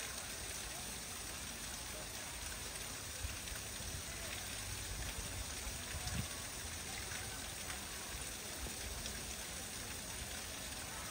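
Steady hiss of water spraying and pattering onto wet concrete, with a faint murmur of voices.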